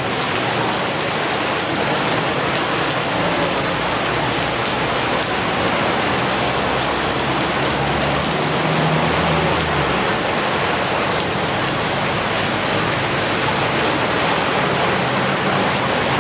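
Steady rush of water on a flooded street: rain and floodwater running, an even hiss that does not break.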